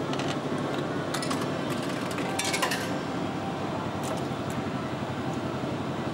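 Coins dropped into the slot of an old ramen vending machine, clinking through the coin mechanism a few times in the first three seconds, the loudest with a short ring about two and a half seconds in. A few light clicks follow about four seconds in as the ramen selection button is pressed, over a steady machine hum.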